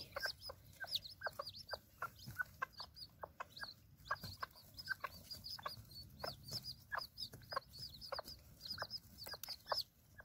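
Newly hatched bantam chicks peeping, many short, high, falling chirps in quick succession, with a broody hen giving short low clucks about once or twice a second.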